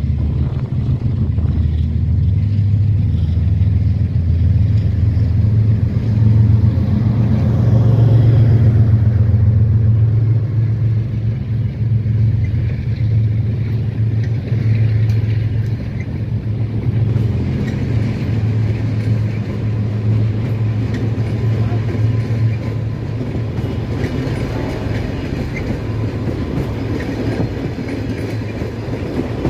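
Diesel-hauled passenger train passing close by: the locomotive's engine gives a deep, steady drone that grows loudest about eight seconds in as it goes past, then the passenger coaches roll by with steady wheel and rail noise.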